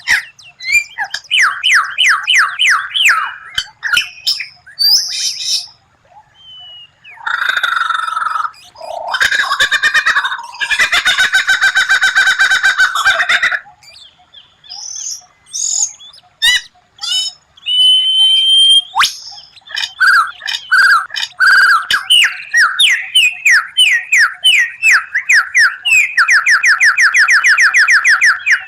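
White-rumped shama (murai batu) singing a varied song: quick runs of repeated sharp notes, a harsh, squawky stretch in the middle, and clear whistles. Near the end comes a long burst of fast, evenly spaced notes, the rapid-fire 'tembakan' phrase that bird keepers prize.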